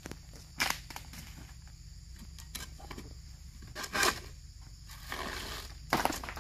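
A few short rustles and knocks, the loudest about four seconds in, as a long-handled chisel harvesting pole (dodos) is worked up through the fronds of an oil palm toward a fruit bunch's stalk.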